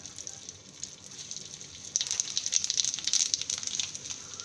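Cumin seeds and asafoetida frying in hot oil in an iron kadhai, a steady sizzle with fine crackling that grows louder about two seconds in.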